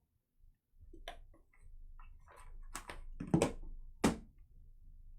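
Trading cards and their packaging being handled: a run of sharp clicks and short rustles, the loudest two a little past three and four seconds in.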